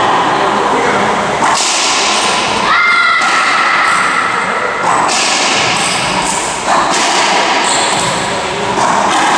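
Racquetball rally: the ball is struck by racquets and thuds off the walls of the enclosed court several times, with a sneaker squeak on the wooden floor about three seconds in, all over a steady background hiss.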